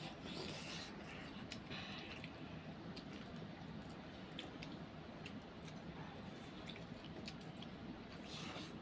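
Two children eating instant noodles: soft slurps and chewing, with short light clicks of forks against steel plates, over a faint steady low hum.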